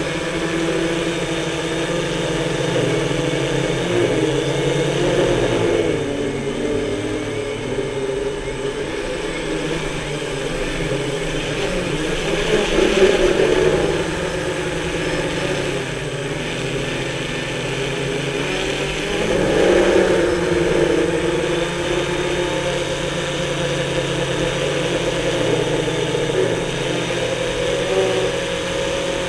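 Electric motors and propellers of a multirotor drone, heard from the camera on board: a steady whir made of several pitches that rise and fall together, swelling louder about 13 and 20 seconds in.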